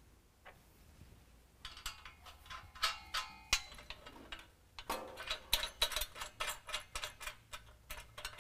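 Small metal clicks and clinks of a bolt, washers and nut being fitted by hand to an exhaust pipe flange. A few scattered clicks come in the first half, then a quicker run of several clicks a second from about five seconds in.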